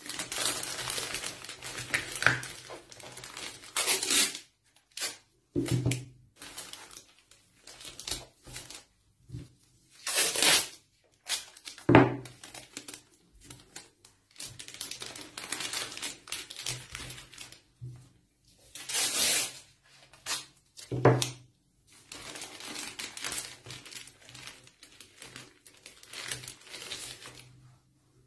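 Masking tape being pulled off the roll and torn into strips in several loud rips, amid crinkling and rustling of thin plastic film being folded and pressed down by gloved hands.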